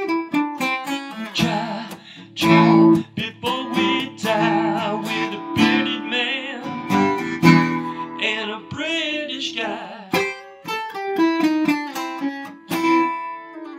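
Acoustic guitar played with plucked notes and strummed chords, with a man singing along.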